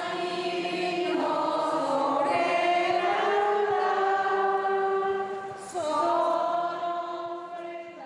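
A choir singing slowly in long held notes. The voices slide down in pitch about six seconds in and then fade out near the end.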